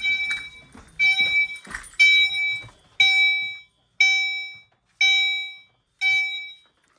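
Fire alarm notification appliance sounding the alarm from a pull-station test: a bell-like chime tone struck about once a second, each one fading out before the next, with some knocking and handling noise in the first two seconds.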